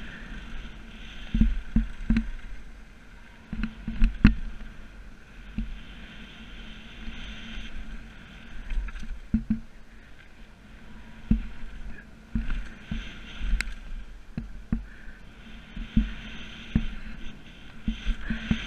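Mountain bike being ridden down a rough freeride trail, heard up close: irregular knocks and rattles as the bike takes bumps and drops, over a hiss of rolling tyres and wind that comes and goes.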